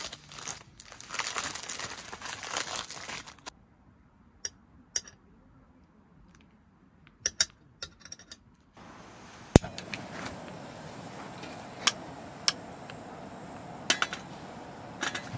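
Crinkling and rustling, then scattered sharp clicks and clinks. About nine seconds in, a steady background hiss comes in, with more clicks, one of them a loud sharp knock.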